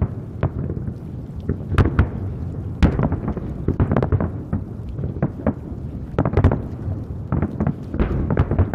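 Aerial firework shells bursting in quick, irregular succession: many booms over a continuous low rumble, the loudest about two and three seconds in.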